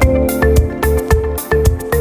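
Background music with a steady beat: plucked, mallet-like synth notes over a pulsing bass.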